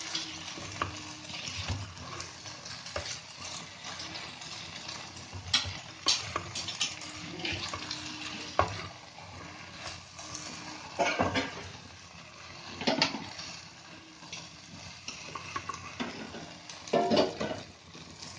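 Potatoes in poppy-seed paste frying in oil in a kadai, sizzling steadily while a silicone spatula stirs them and scrapes the pan, with a few louder scrapes and knocks. The paste is being fried dry until the oil separates.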